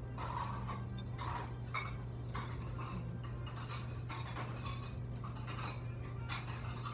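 Chopsticks and tableware clinking lightly against dishes during a meal: scattered short clinks, one every half second or so, over a steady low hum.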